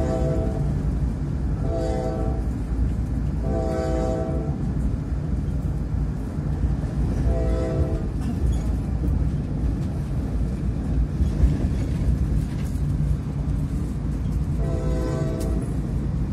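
Passenger train running at speed, a steady low rumble heard from inside the carriage, with short horn blasts sounding five times at uneven intervals.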